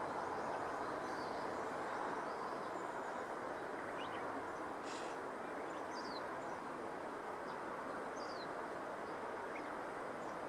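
Rural outdoor ambience: a steady rushing background noise with faint, short, high-pitched bird chirps scattered through it, and a brief hiss about five seconds in.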